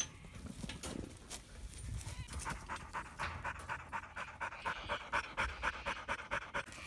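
Working kelpie panting fast and rhythmically close by, about four to five breaths a second, starting about two seconds in.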